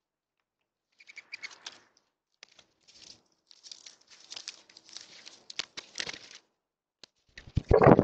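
Birds pecking and scuffling at seed on a feeder tray in scattered scratchy bursts, then a loud flurry of wing flaps from mourning doves taking off near the end.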